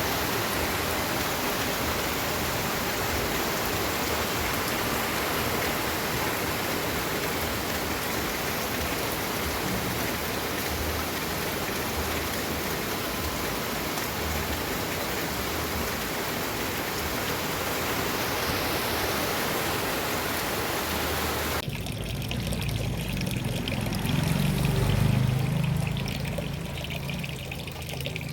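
Steady rain, an even hiss. Near the end it cuts abruptly to a quieter, duller patter with a low rumble.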